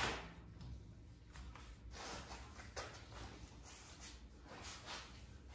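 Several faint swishes and rustles of a nylon ratchet strap being handled and pulled around a vending machine, the loudest right at the start, over a low steady room hum.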